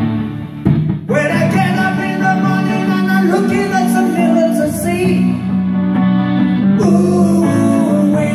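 Live rock band playing an instrumental passage of a slow rock ballad: a wavering lead melody over held chords and bass. The level dips briefly about half a second in, and the full band comes in fuller at about one second.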